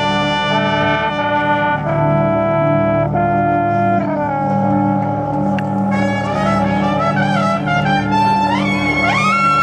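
Brass ensemble playing slow, sustained chords that shift every second or so. Near the end the harmony climbs into a loud, high held chord.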